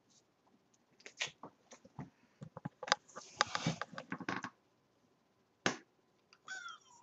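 A run of clicks and rustling in the middle, then a short meow from a calico cat, falling in pitch, near the end.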